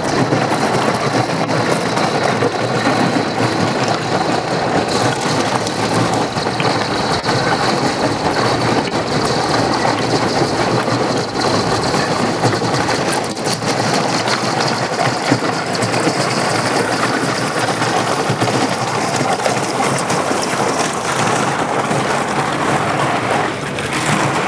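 Thin canal ice breaking up and scraping along a narrowboat's hull as the boat pushes through it: a dense, steady crackling and hissing that eases slightly near the end.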